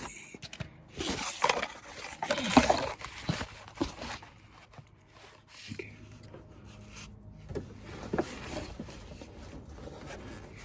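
A man grunting and breathing hard with effort while twisting a tight oil filter loose by hand. A faint steady low hum comes in about halfway through.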